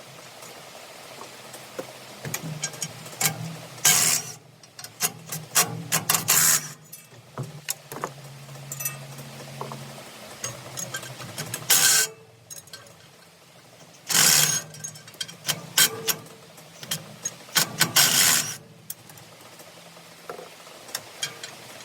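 Fast-forwarded sounds of tool work on a John Deere 468 round baler's pickup as the metal pickup bands are taken off: rapid clicks and clanks of tools on metal, broken by several short, loud rushing bursts.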